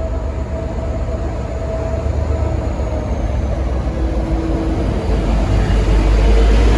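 Diesel-electric N class locomotive running as it pulls out, a deep steady engine sound that grows louder about five seconds in.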